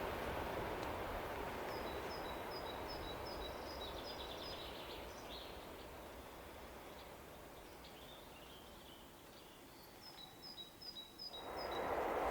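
Rumble of a passing train fading away. Over it a small bird sings two runs of short, high, repeated chirps. Near the end another train's noise rises sharply as it comes close.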